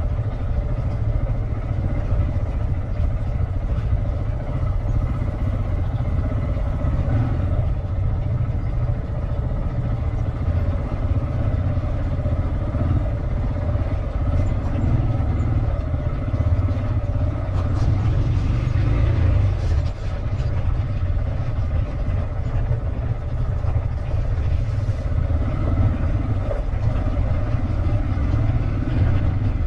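Motorcycle running at a steady pace with a heavy, even rumble of wind on the microphone.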